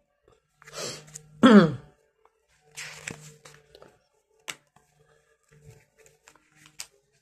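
A paper catalogue being handled and put down: a few short rustles of its pages and some light clicks. A brief voice sound with falling pitch about one and a half seconds in is the loudest thing.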